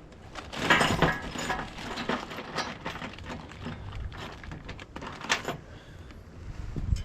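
Irregular knocks and clinks of bolts, nuts and lock washers being handled and fitted to fifth wheel hitch hardware, with a cluster of them about a second in and a sharp one near five seconds.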